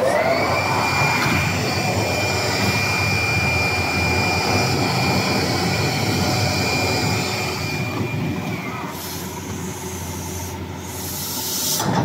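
Coreless winder machine for air bubble film running: a motor whine rises quickly at the start, holds steady, then falls away about eight and a half seconds in, over a mechanical rumble. Short bursts of hiss come near the end.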